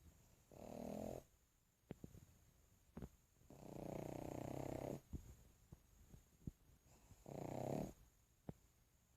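A sleeping pug snoring: three rasping snores, the middle one the longest, with faint clicks between breaths.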